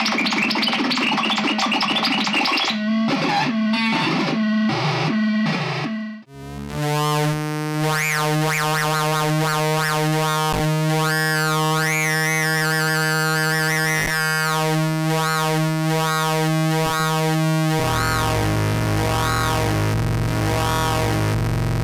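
Fort Processor DIY noise-synthesiser circuit playing: a dense noisy texture breaks into choppy, stuttering bursts, cuts out briefly about six seconds in, then settles into a steady buzzing drone with wavering, warbling high tones above it. Near the end the drone drops lower and takes on a pulsing rhythm.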